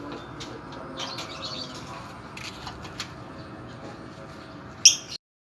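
Caged birds chirping in short high-pitched bursts over a steady background, with one loud chirp near the end.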